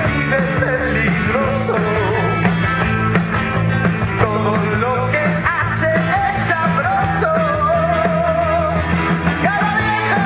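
Rock music with a singing voice, a steady beat and bass.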